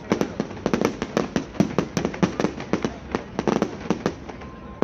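Display fireworks going off in a rapid barrage of sharp bangs, several a second, easing briefly near the end.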